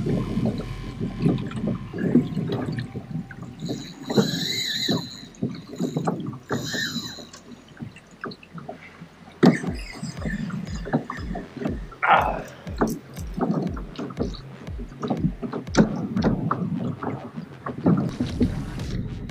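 Water sloshing and slapping against a plastic fishing kayak's hull, with irregular small knocks and clicks of gear and rod while a fish is being fought. Two short, higher-pitched rising squeals come about four and six seconds in.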